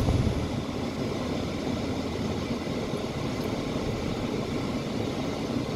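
Steady, even vehicle rumble heard inside a Dodge pickup truck's cab, with no distinct knocks or changes.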